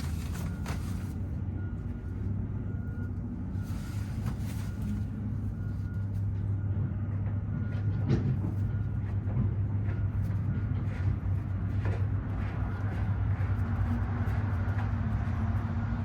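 A motor running steadily with a low even hum and a faint high whine, growing a little louder about halfway through, with a few light clicks.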